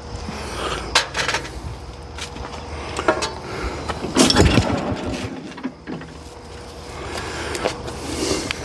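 Clanks and rattles of a starter rope being handled at a cast-iron Kohler engine, with a heavy clunk about halfway through. Near the end a hard pull on the rope turns the engine over.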